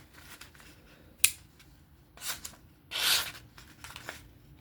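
A knife edge being tested with a sharp click about a second in, then three short scraping strokes of the blade, the second the longest.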